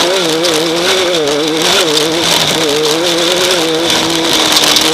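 Off-road race car engine running hard, heard from on board, its pitch wavering up and down as the throttle comes on and off, over a steady hiss.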